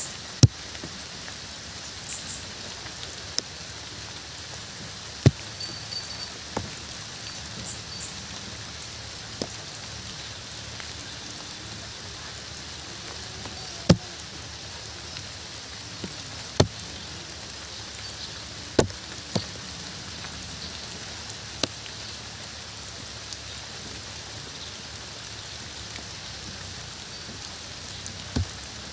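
Steady rain falling, with heavier single drops landing close by as a few sharp, loud clicks scattered through it.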